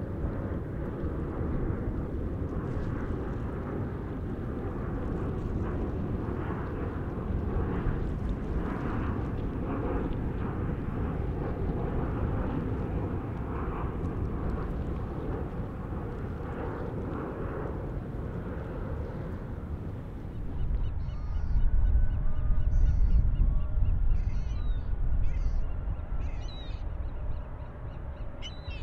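Airbus A350-900 jet engine noise during its landing, a steady rushing. About twenty seconds in it gives way to wind rumbling on the microphone and birds calling.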